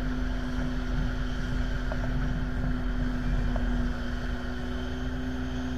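Steady engine drone on an airport apron: a constant low hum with rumble and wind on the microphone, from the airliner's engines and the ground tug nearby.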